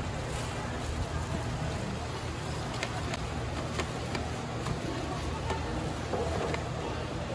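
Wet squelching of noodles being tossed by gloved hands in spicy sauce in a large stainless-steel bowl, with a few faint clicks against the bowl, over a steady background hum.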